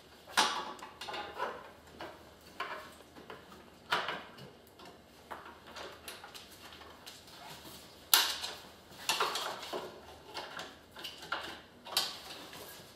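Clacks and knocks from the frame, seat and armrest parts of a B400 power wheelchair as they are handled and adjusted by hand: a string of separate hits, the loudest about half a second in and about eight seconds in.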